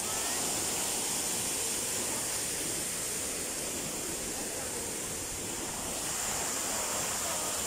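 Steady rushing of a park fountain's falling water.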